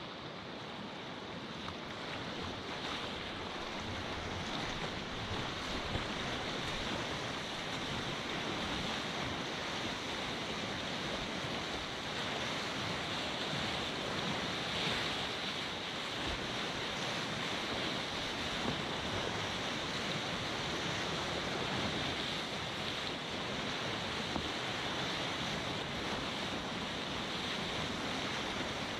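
Steady rush of fast whitewater rapids on a river running high, heard close up from a kayak riding through them.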